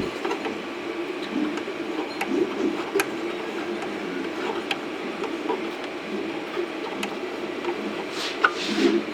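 Scattered small clicks and knocks of a resin printer's vat thumb screws being done up by hand, over a steady low hum, with a brief rustle near the end.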